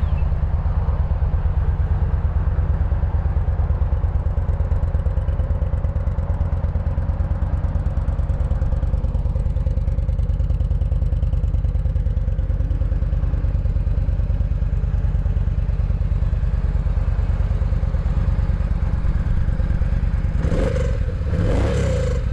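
Yamaha V Star 950's air-cooled, fuel-injected 950cc V-twin idling steadily through its chrome two-into-one exhaust, running nice and quiet.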